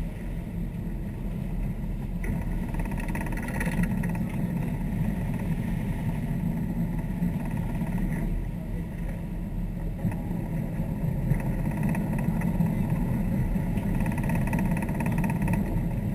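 Sportfishing boat's engines running steadily, a continuous low drone with water washing at the stern.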